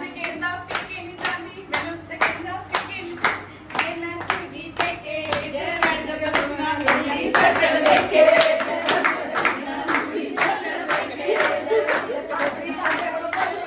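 Steady rhythmic hand clapping, about three claps a second, with voices singing along in time; the singing is loudest around eight seconds in.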